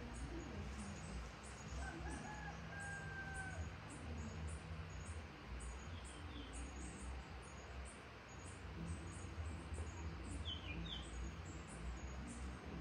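A rooster crows once, faint and drawn out, about two seconds in. A few short, high bird chirps follow near the middle and near the end, over a steady low hum.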